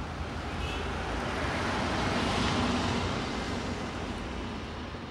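City road traffic. A vehicle's tyre and engine noise swells to a peak about halfway through and then fades as it passes, over a steady low traffic rumble.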